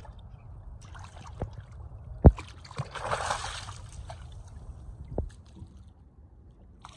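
Hooked speckled trout splashing and thrashing at the surface beside a boat hull, with a burst of splashing about three seconds in. A sharp knock a little over two seconds in is the loudest sound, with fainter knocks before and after.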